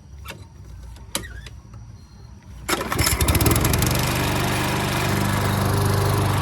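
Walk-behind lawn mower's small engine starting about two and a half seconds in, catching at once and settling into steady running. A couple of sharp clicks come before it.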